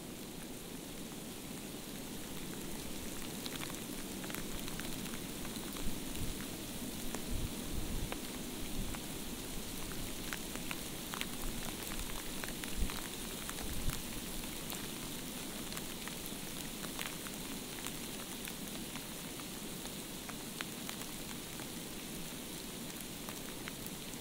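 Field recording of steady rain: an even hiss with scattered sharp drips and ticks, most of them in the middle stretch.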